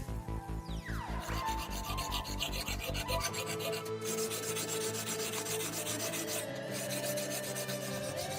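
Abrasive rubbing by hand, in quick repeated strokes at first, then a steadier scraping.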